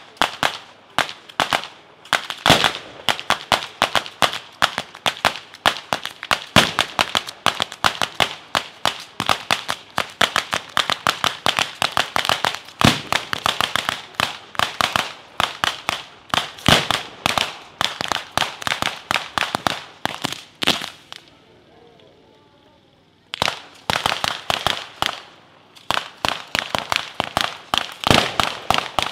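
Neapolitan-style firecracker battery (batteria alla napoletana): chains of firecrackers strung on cane lines going off in a rapid, uneven string of sharp bangs. A lull of about two seconds comes about three-quarters of the way through, then the bangs start again.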